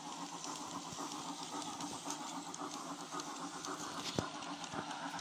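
Garden-scale model steam locomotive running past with its sound module playing steam-engine sounds, wheels on the rails, and a sharp click about four seconds in.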